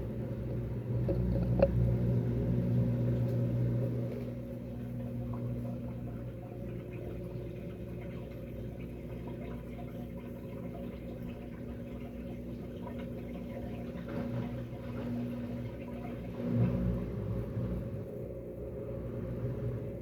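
Electrolux LAC12 12 kg washing machine on its intermediate spin: a steady motor hum with drum rumble, louder for the first few seconds and then settling quieter. A single click about two seconds in.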